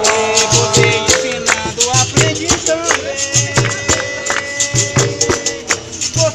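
Live capoeira roda music: a steady rhythm of a low drum with jingling and rattling percussion, and voices singing over it.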